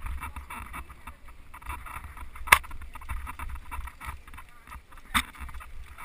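Mountain bike rolling over a dirt singletrack, heard from a bike-mounted action camera: a steady low rumble of tyres and wind on the microphone, with two sharp knocks about two and a half and five seconds in.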